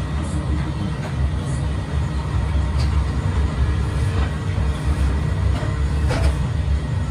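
Electric motor of a belt-driven wood lathe running with a steady low rumble, with a couple of light knocks as a glued-up wooden blank is fitted to the spindle and set spinning.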